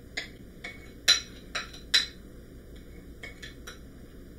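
Metal spoon clinking and scraping against a ceramic mixing bowl while chocolate cookie crumb crust mixture is scraped out into a pie plate: a run of sharp clinks, the loudest a little over a second in and at two seconds, then a few softer taps.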